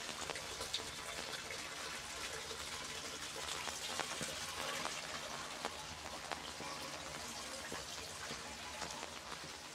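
Steady rain falling on wet pavement, with single close drops ticking here and there.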